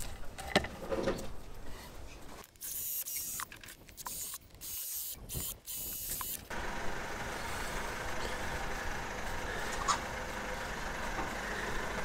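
Cordless drill boring drainage holes into the end of a hollowed log, run in several short high-pitched spurts that stop abruptly about halfway through. Before it, a few knocks from the log being handled.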